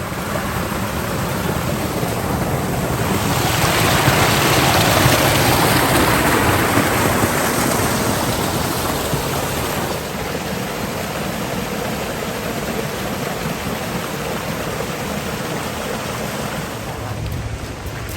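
Fast-running river rushing over rocks, high with snowmelt; the rush grows louder about three seconds in, peaks, then settles to a steady level.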